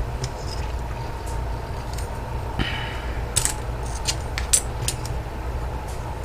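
Small plastic model-kit parts being handled and fitted together: a brief rustle, then a handful of sharp light clicks in the middle, over a steady low hum.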